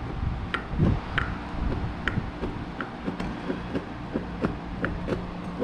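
Light metallic clicks at irregular intervals, about one or two a second, as the gears and synchro ring on a Toyota FJ40 transmission main shaft are worked back and forth by hand: free play the owner thinks is too much. A steady low hum runs underneath.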